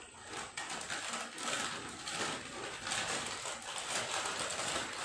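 Potato chips being crunched and chewed: a run of irregular, crackly crunches.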